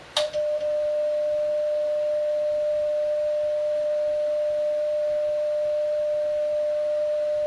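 Steady, unbroken CW sidetone from the transceiver, a single mid-pitched tone that starts with a click just after the start. It is the monitor note of the transmitter held key down, driving the Heathkit SB-220 linear amplifier during tune-up.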